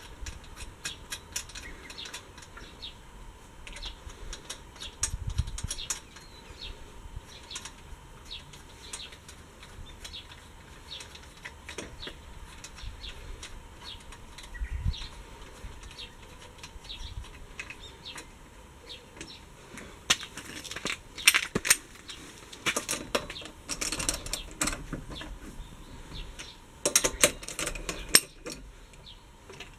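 Irregular sharp metallic clicks and clinks from hand tools and wheel hardware during a tire change, sparse at first, then in dense, louder flurries in the second half.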